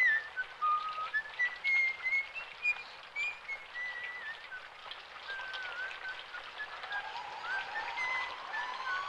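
Heavy rain falling steadily, with a high whistled melody of short, sliding notes over it. Near the end a long, slowly rising whistle-like tone comes in.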